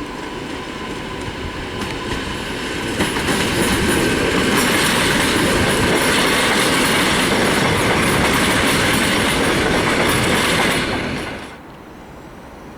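EN57AL electric multiple unit running along the station track, its wheels and running gear growing louder over the first few seconds and then holding steady. The sound drops away abruptly about eleven seconds in.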